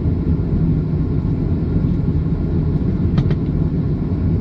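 Steady low rumble in the cabin of a Boeing 737-500 taxiing, its CFM56 engines running at low power, with two faint clicks about three seconds in.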